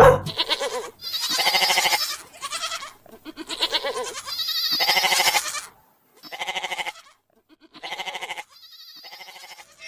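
Goats bleating: a series of about eight wavering calls, each half a second to a second long, one after another with short gaps.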